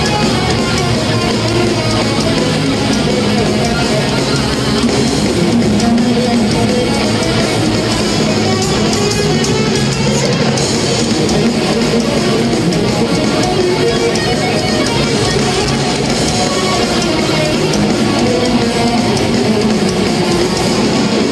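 Thrash metal band playing live at full volume: distorted electric guitars, bass and drums in a steady, dense wall of sound.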